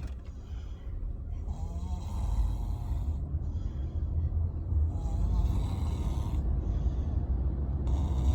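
A two-year-old boy snoring heavily in his sleep, with a snoring breath about every three seconds.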